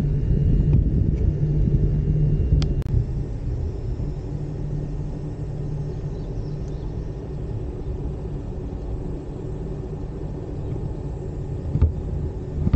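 Low steady rumble of a Gozaisho Ropeway gondola travelling along its cable, heard from inside the cabin. It is louder for the first few seconds and then eases off, with a light click about three seconds in and a short thump near the end.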